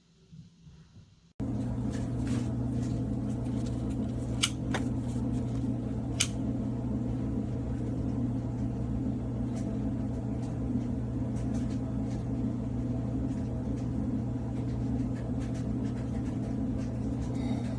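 A steady low machine hum with a faint hiss over it, starting suddenly about a second and a half in, with a couple of sharp clicks about four and six seconds in.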